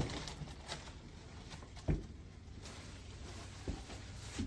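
A few soft, low thumps, about two seconds apart, over a steady low hum.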